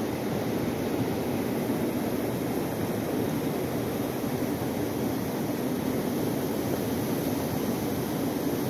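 Steady rushing of a fast, high-flowing river current.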